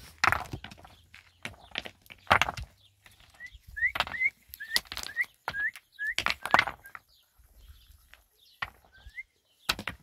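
Irregular knocks and thuds. A bird gives a run of short rising chirps in the middle and one more near the end.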